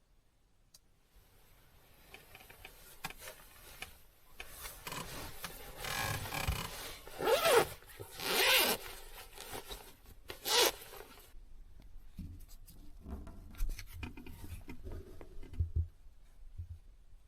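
Close rubbing and scraping handling sounds: a few long, loud zipper-like strokes in the middle, then softer scrapes and rustles.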